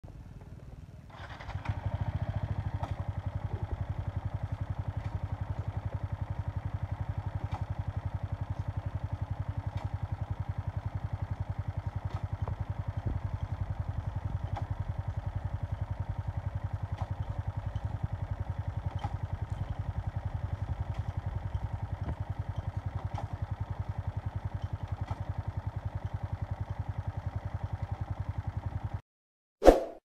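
Yamaha R15 V3's single-cylinder four-stroke engine starts about a second in and idles steadily. Faint clicks come about every two seconds as the foot lever is shifted through the gears. Near the end the sound cuts off and is followed by a short loud burst.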